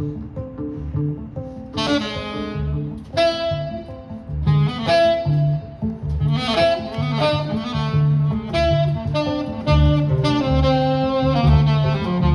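Live jazz trio: a saxophone plays a melodic line of held and moving notes over acoustic guitar and upright bass, the bass keeping a steady walk of low notes underneath.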